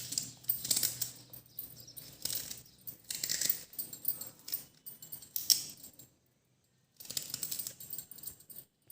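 Knife chopping fresh ginger into fine pieces on a cutting board: a run of short, irregular chopping knocks, which stop for about a second around six seconds in.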